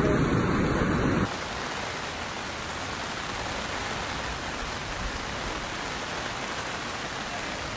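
Loud rush of muddy floodwater in spate that cuts off about a second in, giving way to a steady, even hiss of rain falling on a flooded street.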